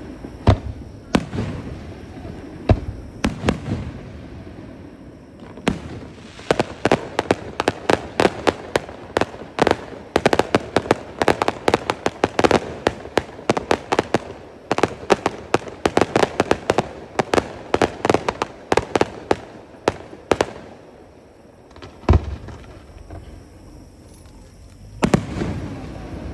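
Aerial fireworks going off: a few separate booms, then a dense run of rapid crackling pops lasting over ten seconds. After a short lull comes one loud bang, then a rumbling burst near the end.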